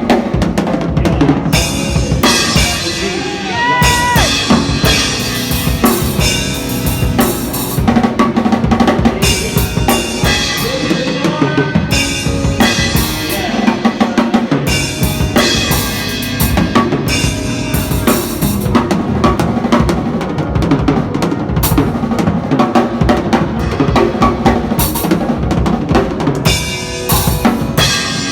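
Acoustic drum kit played in a busy solo: fast bass drum and snare strokes with rimshots and cymbal wash, and pitched instruments sounding steadily underneath.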